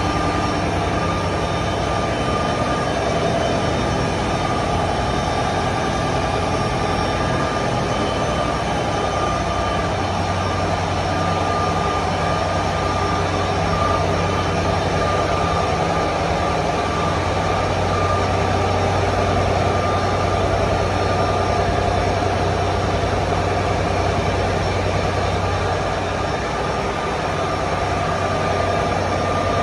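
Large marine diesel engines running steadily in a towboat's engine room: a constant low hum with a steady high whine on top.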